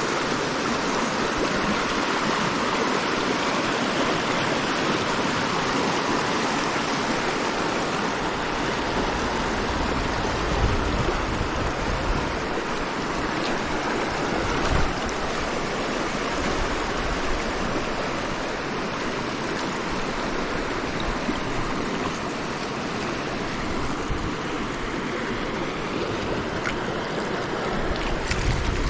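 Shallow river running fast over rocks, a steady rush of riffle water. A few brief low bumps, about eleven and fifteen seconds in and near the end.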